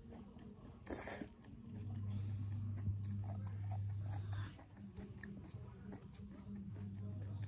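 Close-miked chewing of a mouthful of boiled vegetables and yam, with wet mouth clicks and smacks. A steady low hum starts about two seconds in, stops after about four and a half seconds, and comes back near the end.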